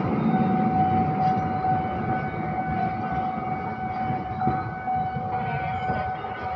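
Train running on the line, a steady high whine over a low rumble.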